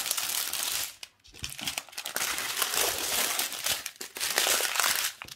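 Strip of joined plastic zip-top bags of diamond painting drills crinkling and crackling as it is unrolled and spread out, with a short lull about a second in.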